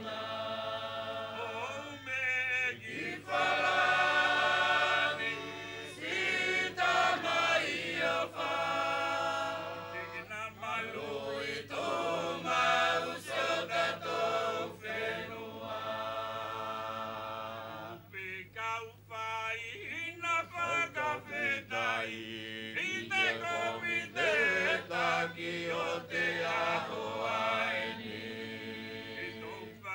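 Seated chorus of men and women singing a me'e dance song together, phrase by phrase with short pauses between phrases.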